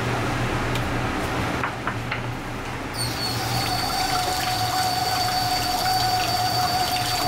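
Tap water running into a stainless-steel sink and bowl as hands rinse pieces of raw fish, starting about three seconds in, with a steady high tone in the flow. Before it come a few light clicks, and a low hum runs underneath.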